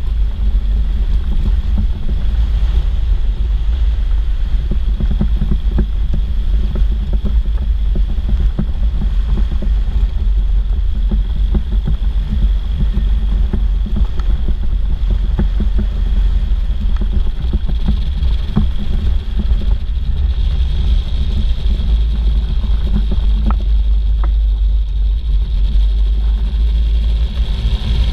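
Weight-shift microlight trike's rear-mounted engine and pusher propeller running steadily as the trike taxis, with heavy low rumble from wind and vibration on the wing-mounted camera's microphone.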